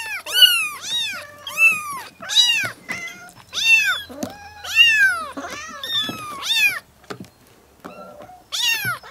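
A litter of four- to five-week-old kittens meowing over one another, a dozen or so high, thin calls that each rise and fall, coming about every half second. They pause for about a second and a half near the end before one more meow.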